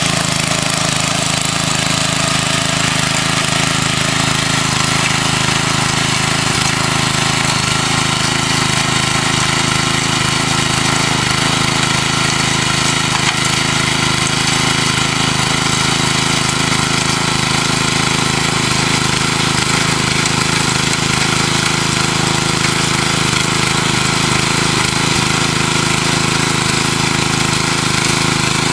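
Craftsman front-tine rototiller's small gas engine running steadily under load while its tines dig through garden soil.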